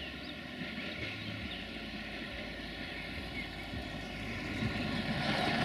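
Duewag BR628 diesel multiple unit running at a distance: a steady engine drone mixed with rail noise, getting louder near the end.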